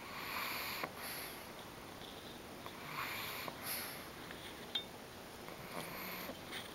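Pug snoring in deep sleep, three noisy snoring breaths about three seconds apart.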